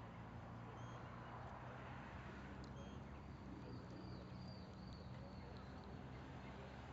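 Faint outdoor background: a steady low hum with a few short, high chirps and a thin faint whistle about four seconds in.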